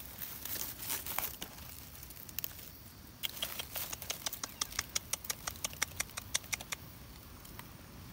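A run of light, sharp clicks about five a second, lasting three or four seconds in the middle, with a few scattered clicks near the start.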